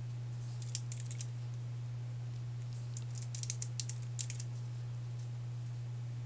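Computer keyboard keystrokes: a few keys pressed about a second in, then a quicker run of keystrokes from about three to four and a half seconds in, over a steady low electrical hum.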